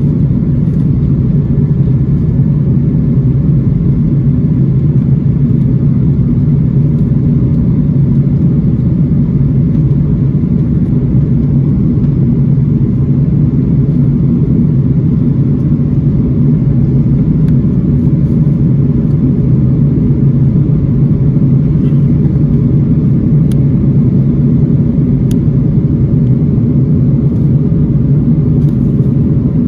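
Steady, loud low rumble of an Airbus A330-300's engines and airflow heard inside the cabin over the wing during the climb after takeoff.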